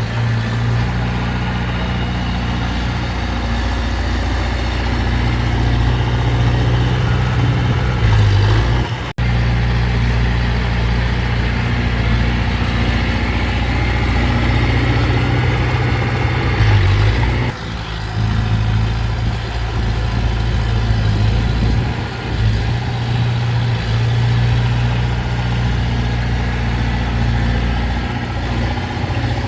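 Heavy diesel engine of earthmoving machinery running steadily with a deep drone. It breaks off sharply for an instant about nine seconds in, and the sound changes abruptly about halfway through.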